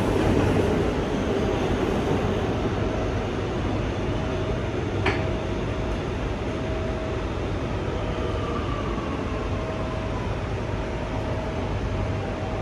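Kawasaki R211T subway car running, heard from inside: steady wheel and track noise with a faint whine that falls in pitch in the second half, and one sharp click about five seconds in.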